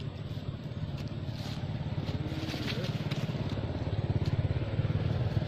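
A small motor vehicle's engine running with a fast low pulsing, growing steadily louder.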